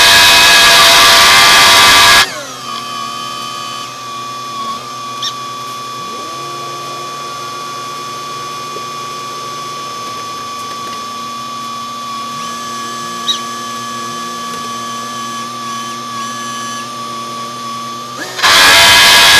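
Machinery running with a steady whine. It starts loud and dense, drops abruptly after about two seconds to a quieter, even high whine with lower hums, and comes back loud just before the end.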